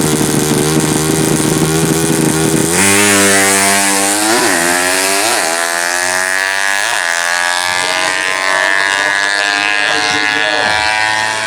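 Four-stroke underbone drag-racing motorcycle engine at high revs. It holds a steady note, gets louder and higher about three seconds in, dips sharply in pitch three times and recovers each time, then holds a high steady note.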